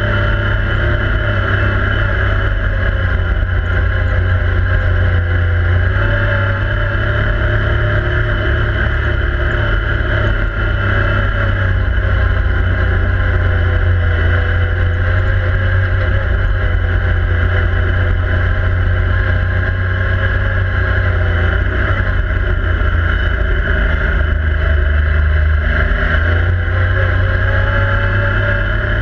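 Yamaha YXZ1000R SS side-by-side's three-cylinder engine running steadily under way, heard from inside the cab, its pitch drifting gently up and down with the throttle.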